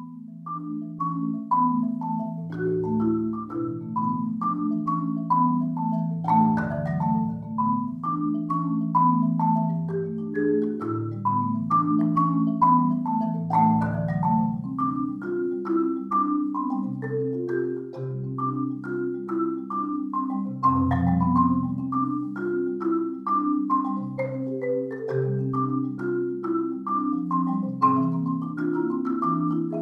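Solo Malletech concert marimba played with four yarn mallets: a continuous flowing pattern of quick, repeating figures of falling high notes over deep low notes that ring on.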